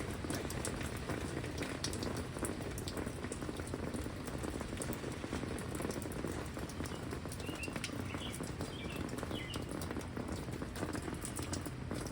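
Heavy rain falling steadily, with many sharp drop hits close to the microphone. A bird chirps a few times, faintly, in the middle.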